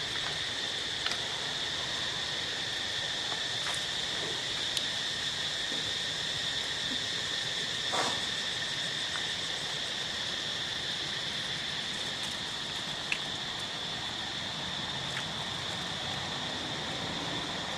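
Steady high-pitched drone of insects, with a few faint clicks scattered through it, one a little louder about eight seconds in.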